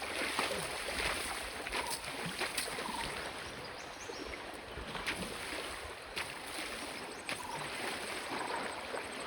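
River water flowing: a steady rushing hiss, with a few short clicks here and there.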